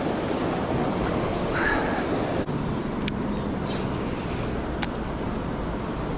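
Steady rushing noise of a river's flowing current, with wind on the microphone. A faint low hum comes in about halfway through, and there are two sharp clicks.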